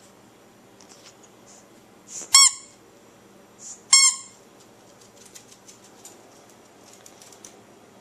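Squeaky dog toy squeaked twice, about a second and a half apart: each a short, high squeak dropping in pitch, with a soft hiss of air just before it.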